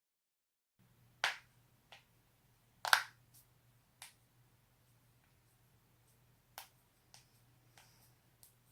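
Joints being cracked: a series of sharp pops starting about a second in, the two loudest near one and three seconds in, followed by several smaller pops, over a faint low hum.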